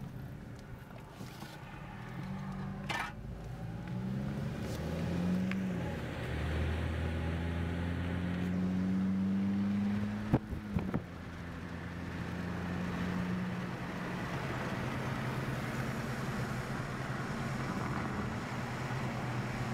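Engine and tyre noise inside a moving car, the engine note rising and falling as it drives. There is a sharp click about three seconds in and a few loud knocks about ten seconds in.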